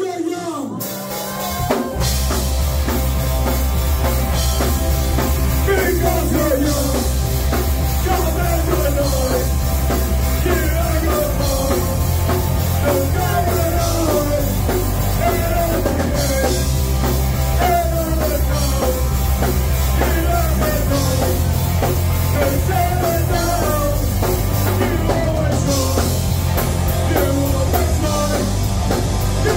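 Live rock band playing loud: electric guitars, bass and drum kit come in together about two seconds in, then drive on steadily with a repeating, falling guitar line over the pounding low end.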